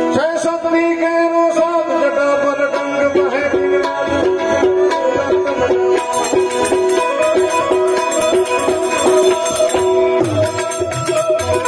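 Instrumental bhajan music: a harmonium plays a melody over sustained reed chords, with small hand cymbals (manjira) striking a steady beat and tabla strokes growing heavier near the end.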